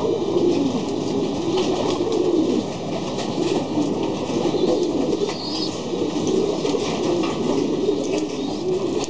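Many racing pigeons cooing together in a loft, a steady overlapping chorus of low, wavering coos.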